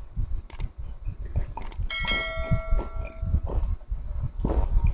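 Sound effect of a YouTube subscribe-button animation: a few sharp clicks, then a notification-bell ding about two seconds in that rings for about a second and a half.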